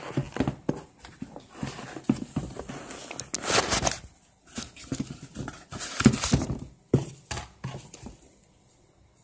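Close handling noise from hands turning and squeezing a sneaker: irregular taps, knocks and rubbing, with a loud brushing rustle about three and a half seconds in and another cluster of knocks around six seconds. It dies down in the last second.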